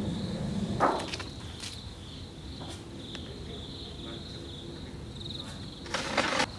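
Insects chirring in a steady, high, slightly pulsing trill, with a sharp knock about a second in and a short rustling noise near the end.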